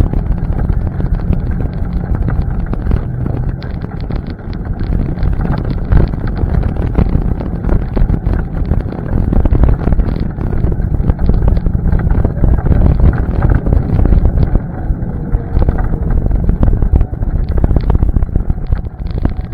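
ATV engine running under way over a rough trail, with frequent knocks and jolts and wind buffeting the microphone.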